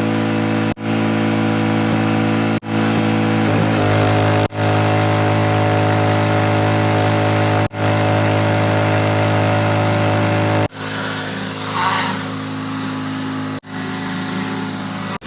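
Gas-engine pressure washer running steadily while cleaning a deck, its sound dropping out sharply and briefly six times.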